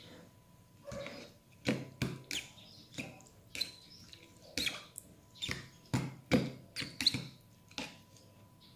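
Spoon and tableware clicking and scraping against a bowl and container while food is served: about a dozen short, irregular clicks, the loudest a little past the middle.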